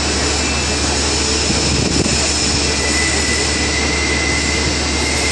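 Right-angle milling head of a CNC drilling machine cutting along the edge of a metal plate: a steady, loud machining noise with a constant high whine and a low hum underneath.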